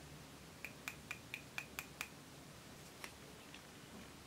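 A quick run of about seven light taps, each with a short ring, four or five a second, then one more tap about a second later, from a small glitter vial tapped by hand as its glitter is shaken out.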